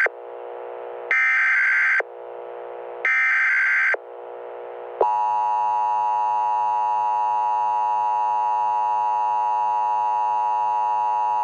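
Emergency Alert System tones: two shrill one-second SAME header data bursts with a lower buzz between them, then about five seconds in the steady two-tone EAS attention signal starts and holds.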